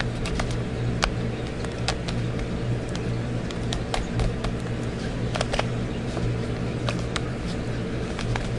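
3x3 Rubik's Cube faces being turned in quick sequences, giving irregular plastic clicks and clacks, over a steady low hum.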